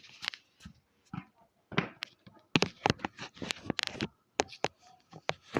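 Plastic fidget toys being handled and picked through by hand, giving irregular sharp clicks and taps, a few a second.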